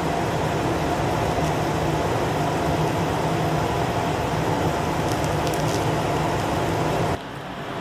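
Steady running hum and hiss of a fan-like machine, with no speech over it; it drops sharply in level about seven seconds in.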